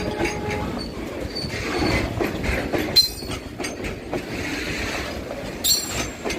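Train running on the track: a steady rumble and rail clatter, with two short sharp metallic squeals from the wheels, about three seconds in and again near the end.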